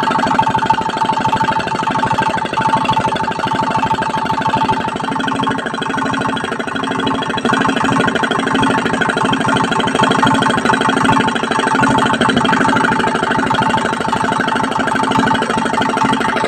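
KAIAO 192F single-cylinder air-cooled diesel engine running steadily: a fast, even chug of firing pulses with a steady ringing tone above it.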